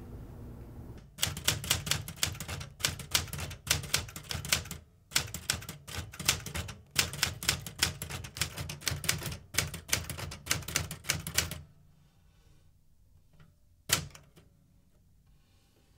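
Typewriter keys being struck in quick runs of typing with short pauses between them. The typing stops about three-quarters of the way through, and one louder, sharp clack follows near the end.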